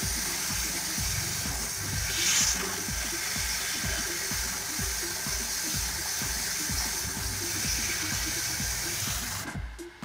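Water jet from a handheld pressure washer spraying the blower wheel of a split air conditioner's indoor unit, a steady hiss that stops shortly before the end. Background music with a steady beat plays underneath.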